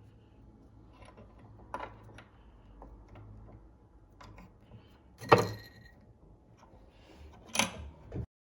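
Scattered small metallic clicks and taps of silver wire and hand tools being handled at a jeweller's bench vise, with a louder knock a little past halfway and another near the end, over a faint low hum.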